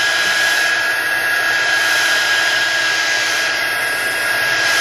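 Heat gun blowing steadily, a rushing hiss with a high whine, heating the screen's edge to soften the adhesive under the glass.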